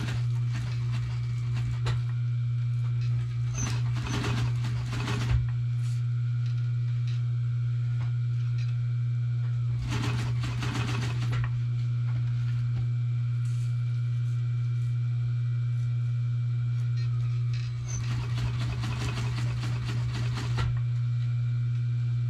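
An industrial sewing machine stitches black fabric in three runs of rapid needle strokes: a few seconds near the start, a short burst around the middle, and a few seconds near the end. A steady low electric motor hum runs underneath throughout.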